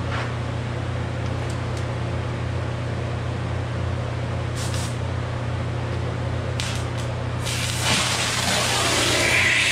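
Exothermic oxygen lance being readied and lit: two short hisses of oxygen, then about three-quarters of the way through the rod ignites and burns with a loud, rising hiss. A steady low hum runs underneath.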